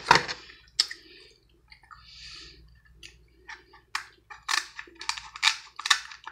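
Kitchen scissors snipping through a cooked crab leg's shell: a string of sharp cracks and crunches, most of them in the second half.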